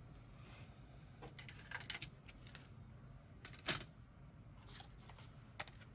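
Scattered small clicks, taps and light rustles from handling CD single packaging and inserts, with one sharper click a little under four seconds in.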